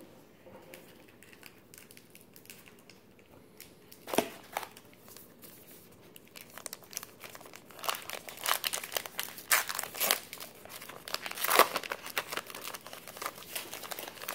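A 2019 Topps Allen & Ginter trading card pack wrapper being torn open and crinkled by hand. A couple of sharp crinkles come about four seconds in, then a dense run of crackling and tearing from about eight seconds in, loudest near twelve seconds.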